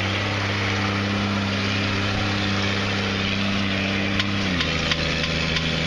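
Cummins turbo-diesel in an old dually flatbed truck held at steady high revs while its wheels spin in deep mud, with a steady hiss alongside. About four and a half seconds in, the revs drop to a lower steady pitch.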